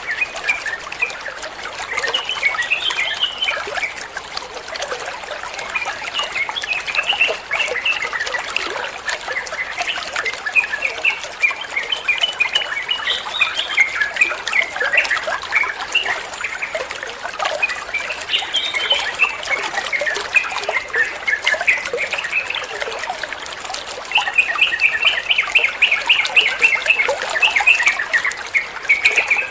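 Yellow-vented bulbul (trucukan) song: a long string of short, chirpy notes, running into a fast, dense chatter near the end, over a steady background of trickling water.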